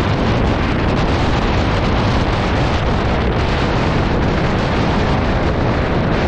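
Storm-force wind buffeting the camera's microphone: a loud, steady, deep rush of wind noise that never lets up.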